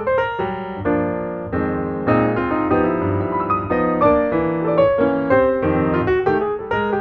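Background piano music, a steady flow of quick notes.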